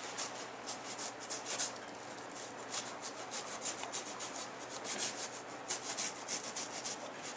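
A knife blade sawing through thick sponge foam in quick, repeated scratchy strokes, a few a second, cutting out an eye hole in a foam puppet head.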